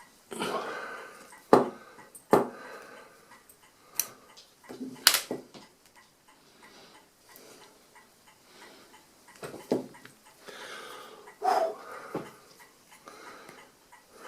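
Irregular sharp metallic clicks and scraping from gummed-up detent levers of an Addo Multo Model 3 mechanical calculator being worked round on their shaft; the levers are stuck and hard to free.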